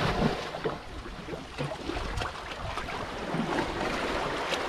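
Sea water lapping and splashing at the shore, with wind on the microphone and a few faint clicks scattered through.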